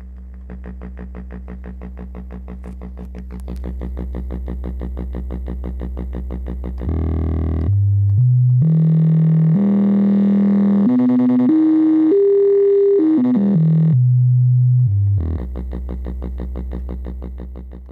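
M-Audio AV40 powered studio monitors giving out a steady low hum with a buzz. About seven seconds in, a test tone through them climbs in several even steps and then steps back down, and after it the hum returns. The repairer traces the hum to leaked, domed main filter capacitors in the speakers' class AB amplifier.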